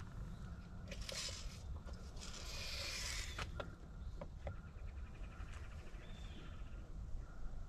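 Hand work with a steel tape measure on a wooden board: scuffing and rustling, several light clicks, and a short fast rattle of the tape about two-thirds of the way through, over a low steady rumble.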